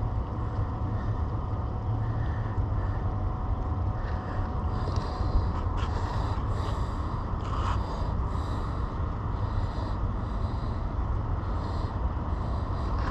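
A steady low rumble, with faint light rustles and clicks from fingers tying a rig on fishing line close to the microphone.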